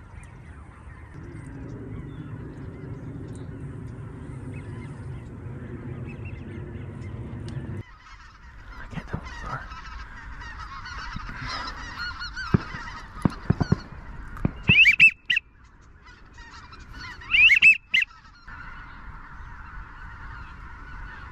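Geese honking, a flock calling steadily, with a few very loud honks near the end. A low steady rumble underlies the first several seconds and cuts off abruptly.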